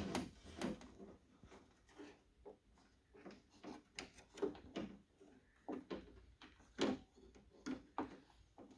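Scattered light clicks and knocks of plastic and metal parts being handled inside a car door while the lock rod is worked back onto the door handle's lock pin clip, a second try after it failed to seat. The sharpest knocks come about four and about seven seconds in.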